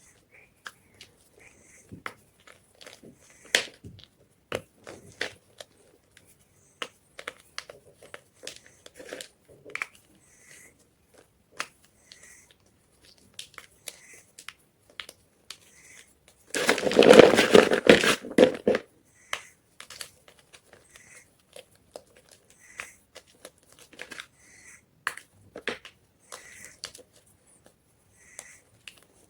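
White gym chalk being crushed: scattered small crunching crackles, then a loud, dense crunch lasting about two seconds a little past the middle.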